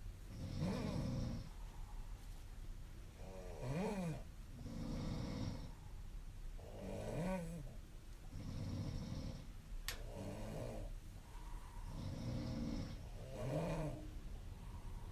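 A young woman snoring in her sleep, a slow run of rasping snoring breaths, some ending in a short wavering voiced tone. A single sharp click, like a lip or mouth click, falls about ten seconds in.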